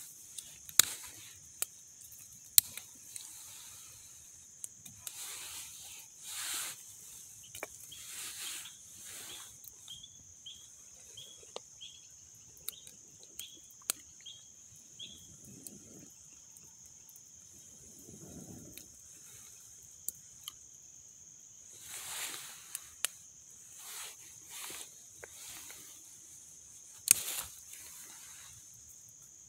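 Small wood cooking fire crackling, with scattered sharp pops, and several breathy puffs of air as someone blows on the embers to liven the fire.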